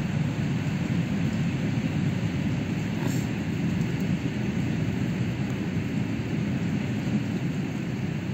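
EG2Tv Ivolga electric train pulling away along the track, a steady low rumble that holds level throughout.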